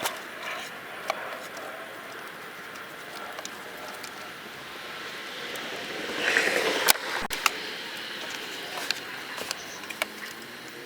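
Small clicks and rattles of the turn signal switch's plastic clips and wiring connectors being worked loose in a Pontiac G6 steering column. There is a burst of scraping about six seconds in, followed by two sharp snaps.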